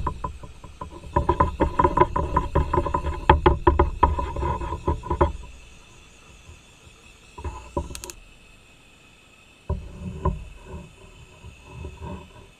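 Background music with plucked-string notes, which stops about five seconds in and leaves a much quieter stretch broken by a single sharp click.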